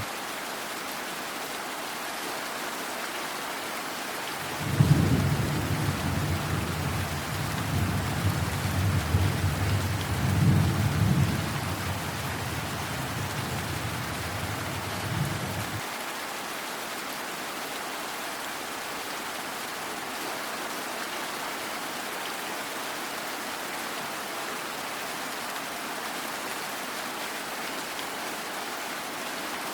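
Steady rain falling throughout, with a long roll of thunder that starts about five seconds in, swells in several peaks and stops abruptly about halfway through.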